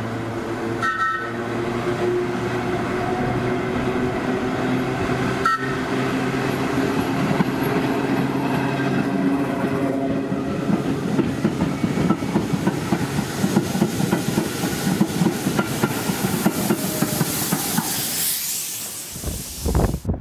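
Heritage train of varnished teak Metropolitan Railway carriages running through a station: a steady low hum with the wheels clicking over the rail joints, the clicking growing busier in the second half.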